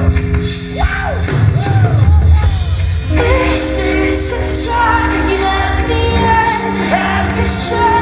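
A live rock band playing: bass guitar, drums with cymbals and held keyboard chords, with a man singing into a microphone.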